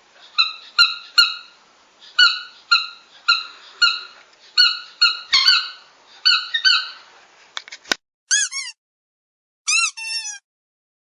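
Squeaky dog toy squeezed again and again, about two high squeaks a second. About eight seconds in it cuts to a cleaner run of a few squeaks that swoop up and down in pitch.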